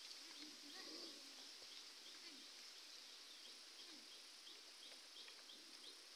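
Near silence: faint outdoor ambience by the water, with a run of short, high chirps repeating about three times a second from about two seconds in.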